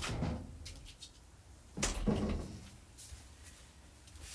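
A door opening and shutting: a sharp click, then a louder knock about two seconds in, followed by a few fainter clicks.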